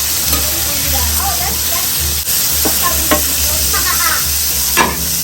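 Food sizzling loudly on a hot cooking surface, a steady dense hiss, with a few sharp clicks of utensils, the loudest near the end. Faint voices underneath.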